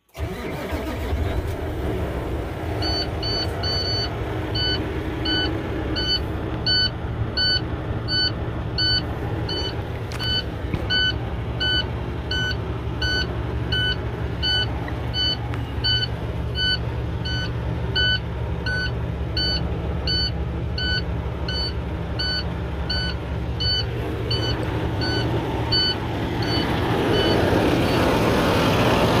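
Cummins ISX15 diesel engine starting and then idling, with a rapid steady beeping from the cab's low-air-pressure warning buzzer while the brake air tanks are still empty. The beeping stops near the end as the air pressure builds, and the engine sounds louder.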